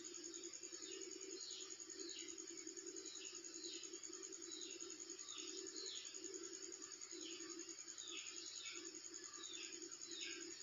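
Sewing machine running steadily, stitching an elastic waistband, with a fast, even rhythm. Birds chirp over it in short falling calls, repeated every half second or so.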